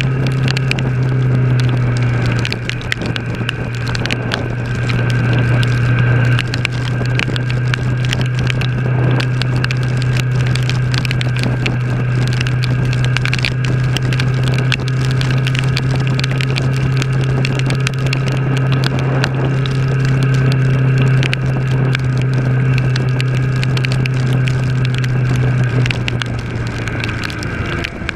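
Kawasaki ER-6's 649 cc parallel-twin engine running at a steady cruise, with wind rushing over the microphone. Near the end the engine note drops away as the throttle eases off.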